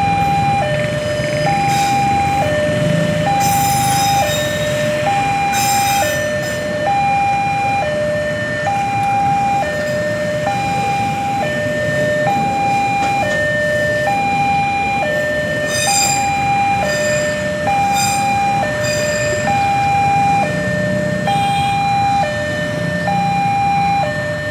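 Railway level-crossing warning alarm sounding an electronic two-tone signal, alternating high and low tones of about three-quarters of a second each without a break, warning that the crossing is closed for a train. Motorcycle engines and traffic run steadily beneath it.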